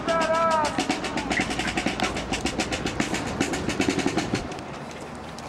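Fast, steady drumming, with a short shout at the very start; the drumming dies away about four and a half seconds in.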